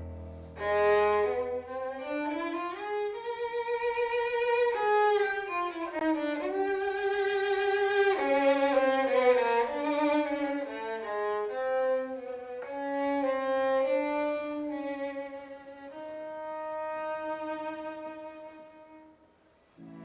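Solo violin playing a slow, singing melody with vibrato. Low sustained notes beneath it die away about two seconds in. Near the end the violin fades almost to nothing before lower instruments come back in.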